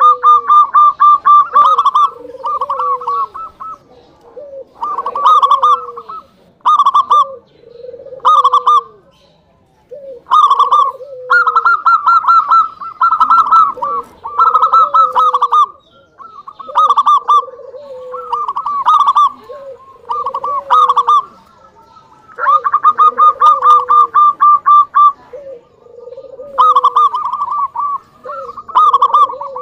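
Zebra dove (perkutut) singing its cooing song in repeated phrases a second or two apart. Each phrase is a loud, rapid rolling trill over softer, lower arched coo notes, with short pauses between phrases.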